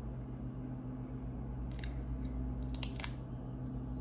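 Plastic pry pick clicking and snapping against the edge of an iPod touch's screen and frame as the glued screen is worked loose: a sharp click about two seconds in and a quick few near three seconds in, over a steady low hum.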